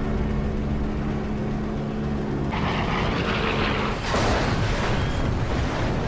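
A Mitsubishi A6M Zero fighter's engine droning steadily. About two and a half seconds in a rushing noise breaks in, and about four seconds in a large explosion follows as the kamikaze plane crashes.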